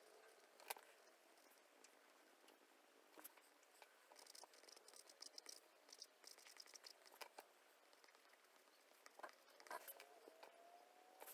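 Faint, scattered scratching and tapping of pastel pencil on pastel board, with quick clusters of strokes in the middle.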